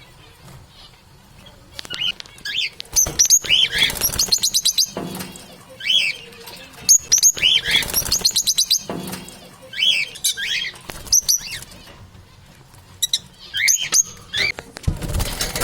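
Parrots chirping in bouts, with short rising-and-falling chirps and quick runs of rapid, sharp notes, and short pauses between the bouts.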